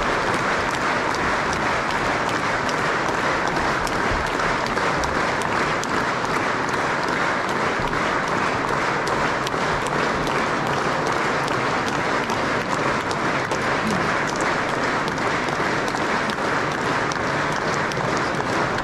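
An audience of students applauding: dense, steady clapping that goes on unbroken.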